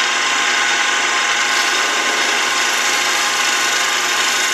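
Mini lathe running steadily, its motor giving an even whine with many overtones, while a small cutter rubs into a metal shell holder to mill a slot.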